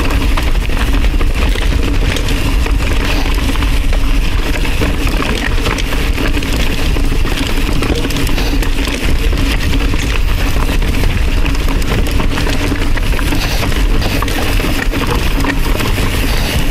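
Mountain bike descending a dirt trail at speed: wind rushing over the action-camera microphone with a steady low rumble, knobby tyres rolling over loam and rocks, and the bike rattling with many small clicks and knocks.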